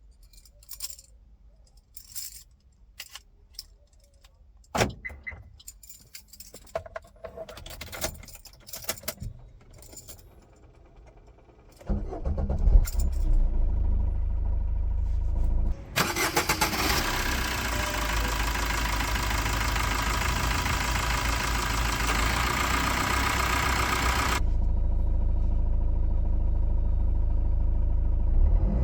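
Handling clicks and rattles, then about twelve seconds in the Suzuki Swift Dzire's 1.3-litre DDiS four-cylinder diesel starts and settles into a steady idle. A loud, steady hiss runs over the idle from about four seconds after the start until about a third of the way before the end, then cuts off.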